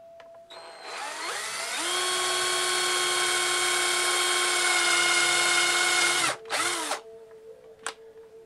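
Cordless drill boring a hole into a wooden base for a dowel: the motor speeds up with a rising whine, runs steadily for about four seconds, stops, then gives one short burst that winds down.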